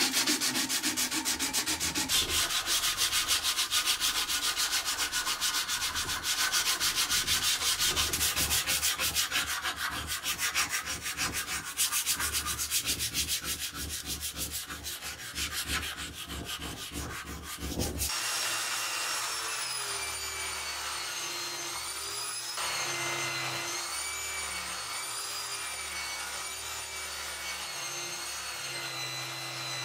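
Steel of a rusty ice axe pick being hand-sanded with abrasive paper and then filed, in quick back-and-forth scraping strokes. About 18 seconds in this gives way to an electric angle grinder clamped in a vise running steadily, its whine wavering in pitch as the steel is held against its wheel.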